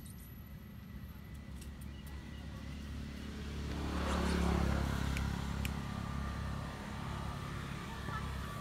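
Low engine hum of a passing motor vehicle, swelling to its loudest about halfway through and then fading.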